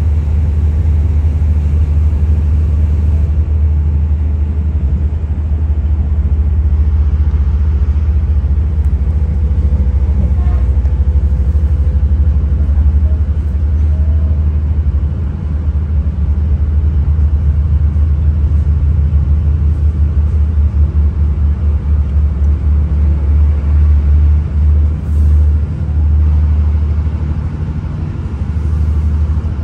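Low, steady rumble of a moving diesel commuter train heard from inside the carriage, turning uneven, with quick dips and swells, in the second half.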